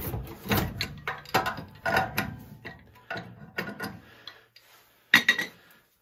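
Irregular metal clicks and clanks from hand and tool work on a steam boiler's low water cutoff as its probe is being unscrewed, thinning out after about four seconds, with one sharp clank a little past five seconds.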